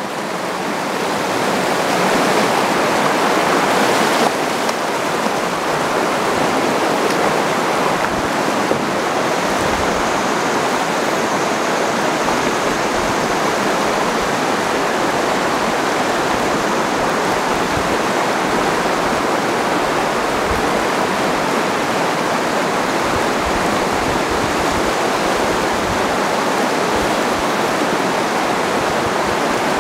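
Steady rush of a fast river rapid pouring over rocks, close by, growing a little louder over the first couple of seconds.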